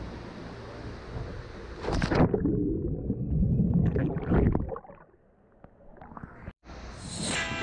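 Steady background noise, then a loud splash about two seconds in as the camera plunges into the pool water, followed by muffled underwater bubbling that fades almost to silence before the camera breaks the surface near the end.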